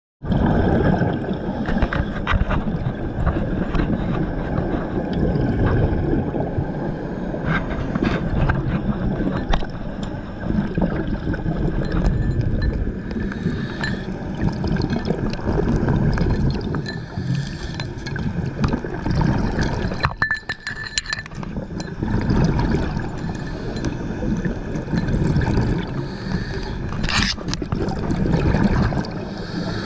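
Gurgling, rumbling water noise picked up by an underwater camera on the river bottom, with scattered clicks and clinks and a louder knock near the end.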